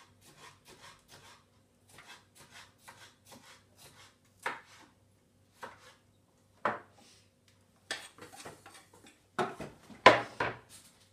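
Kitchen knife chopping bell pepper on a wooden cutting board: quick light strokes, with a few louder knocks. Near the end the board is lifted and the pieces are scraped off it into a bowl, the loudest knocks and scraping.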